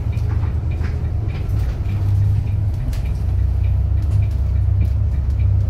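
Steady low rumble of a city bus's engine and running gear heard from inside the passenger cabin. Faint regular ticks sound about twice a second.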